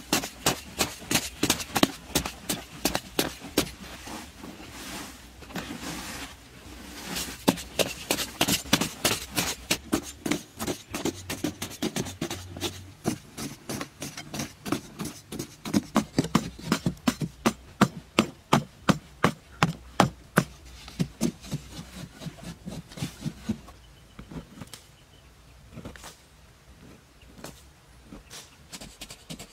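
Two people chopping hard clay soil with hand-held digging sticks: a fast, uneven run of dull knocks, two or three a second. The strikes thin out and get quieter near the end.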